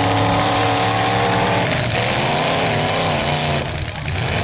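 Loud, unmuffled demolition derby car engines revving, their pitch wavering up and down, with a brief drop in loudness near the end.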